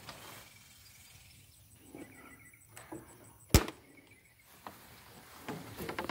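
A single sharp click about three and a half seconds in, with a few soft knocks before and after it.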